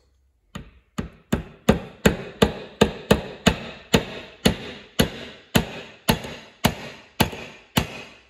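Hammer tapping a pinion gear onto the shaft of an RS550 replacement motor, metal on metal. There are about seventeen sharp strikes, a little over two a second, spacing out slightly toward the end, each ringing briefly.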